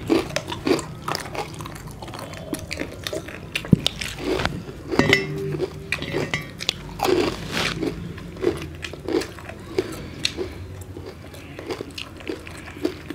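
Several people eating roast chicken with their fingers close to the microphones: irregular bites, crunches and chewing sounds.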